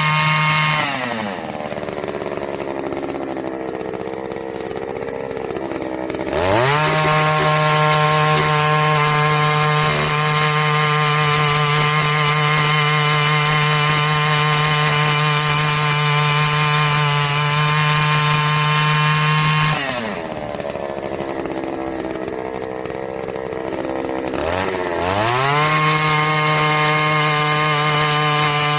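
Booyoung 52cc earth auger's two-stroke engine running at high revs, dropping to idle about a second in. It revs back up near six seconds and holds high revs for about thirteen seconds, then drops to idle again and revs up once more near the end.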